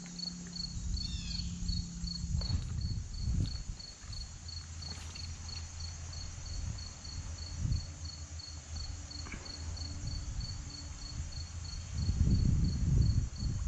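A cricket chirping in a steady, high, even pulse, over the low rush of stream water and wind on the microphone. A louder low rumble comes near the end.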